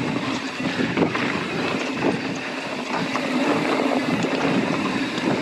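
Mountain bike riding on dirt singletrack: tyres rolling over the trail and the bike rattling over bumps, with a few sharp knocks, over wind noise on the microphone.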